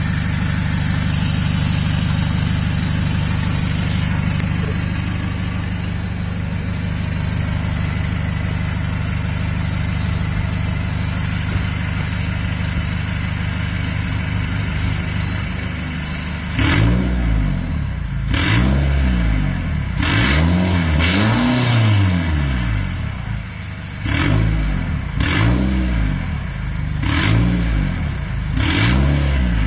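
Nissan Navara idling steadily through its new full exhaust, which has no resonator. About halfway through it is revved in roughly seven quick throttle blips, each rising and falling back, with a short falling whistle after each blip.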